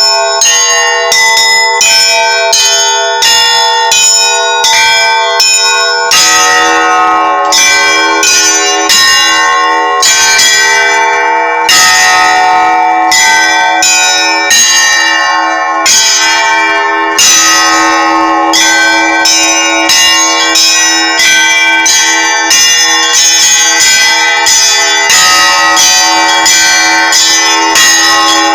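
Orthodox church bells rung in a festal zvon: small bells struck in a quick, steady rhythm, with a deeper bell joining about six seconds in.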